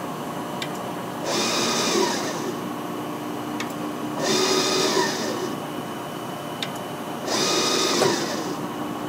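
CCI Citron surface grinder running on automatic, its hydraulic table traversing back and forth over a steady hum. A sharp click comes about every three seconds, as the automatic feed steps at each table reversal, and each click is followed by a louder, hissing surge lasting about a second.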